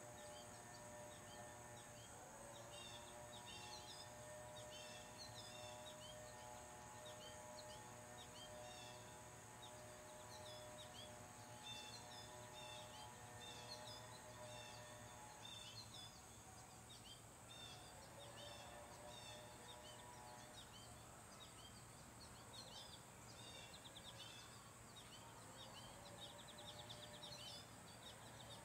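Faint neighbourhood ambience: a distant leaf blower's engine hums steadily, its pitch rising as it revs up about three times. Small songbirds chirp throughout over a steady high hiss.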